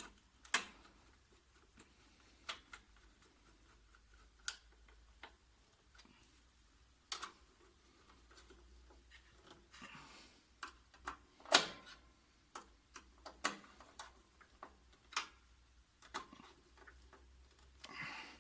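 Scattered sharp clicks and light knocks at irregular spacing, with the loudest about two-thirds of the way through: a screwdriver and screw being worked and metal parts of a photocopier frame handled as a last screw goes in.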